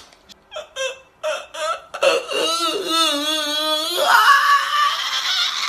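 A man laughing hard: a few short bursts, then about two seconds in a long, high, wavering wail of laughter that turns hoarse and breathy.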